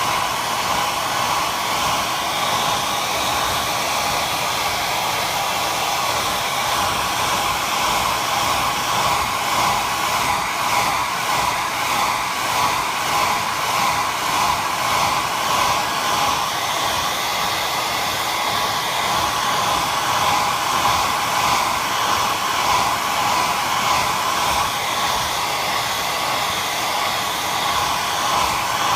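Hair dryer blowing steadily, an even rushing whoosh of air that swells slightly now and then.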